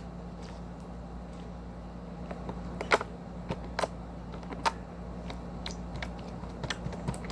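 Slime being worked by hand, giving scattered small clicks and pops, sparse at first and coming faster near the end, over a steady low hum.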